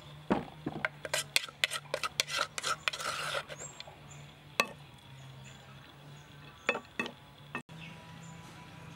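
Papaya salad being scraped out of a clay mortar onto a plate: a quick run of scrapes and clinks over the first three seconds or so, then a few single knocks against the mortar.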